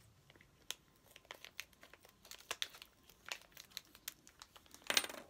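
Clear plastic packaging crinkling as it is handled and cut open with scissors: scattered faint crackles and clicks, with one louder crunch near the end.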